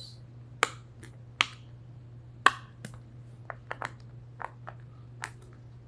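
Hard-shell heart-shaped pop-it fidget toy being pressed: a dozen or so sharp, separate pops at an irregular pace, some in quick runs of two or three.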